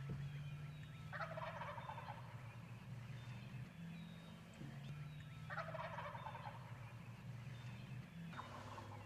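Wild turkey toms gobbling: three gobbles, each about a second long and about three seconds apart, over a steady low hum.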